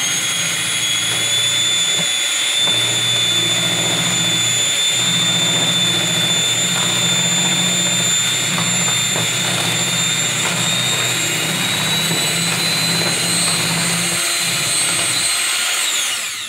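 Electric hand mixer running steadily, its beaters whisking a thin milk mixture in a tall plastic cup: a loud high motor whine that creeps slightly upward, then winds down and stops near the end.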